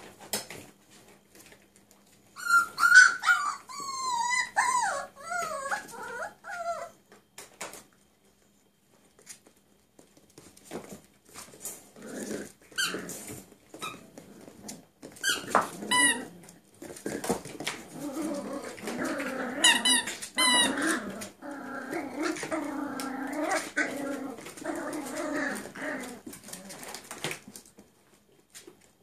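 Cirneco dell'Etna puppies play-fighting: high wavering whines early on, sharp yelps in the middle, then a stretch of low growling with more yelps, typical of rough puppy play. Scattered clicks of claws and knocks against the plastic bed run underneath.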